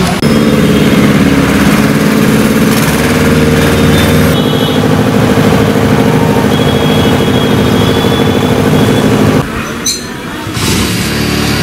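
An engine running steadily, a constant hum that stops about nine and a half seconds in.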